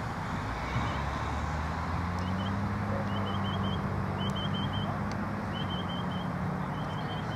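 Outdoor field ambience: wind rumble on the microphone over a steady low engine-like hum, with short high chirps in quick groups of three or four repeating about once a second.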